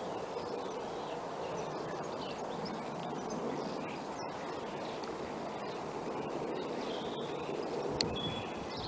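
Distant jet noise from a Boeing 777-200ER climbing away, its twin Rolls-Royce Trent engines a steady broad rumble. Faint bird chirps sound over it, and there is one sharp click near the end.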